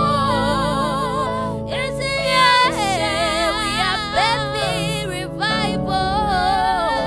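Gospel worship music: a woman's voice singing wordless melodic runs with wide vibrato over sustained keyboard chords.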